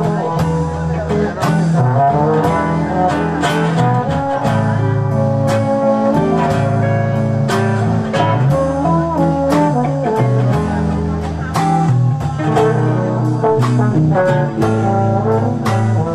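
Live band music: a guitar keeps a steady plucked beat while a valved brass horn with a forward-facing bell plays held notes over it.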